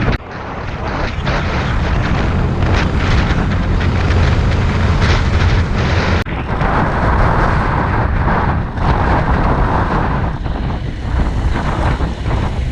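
Heavy wind buffeting the microphone, with a low rumble underneath. It breaks off briefly about six seconds in.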